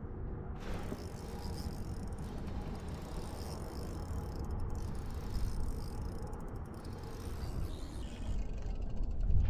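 A fishing reel clicking and ratcheting as a hooked smallmouth bass pulls against a hard-bent rod, with two short runs of rapid ticking in the middle as the drag gives line. Underneath is a steady low rumble of wind on the microphone.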